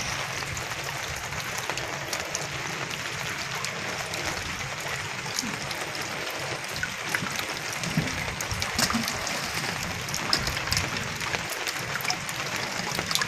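Water sloshing and splashing as a person wades among moored wooden canoes, over a steady noisy background with scattered small clicks.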